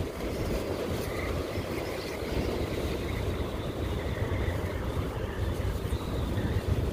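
Strong wind buffeting the microphone: a steady low rumble that flutters throughout.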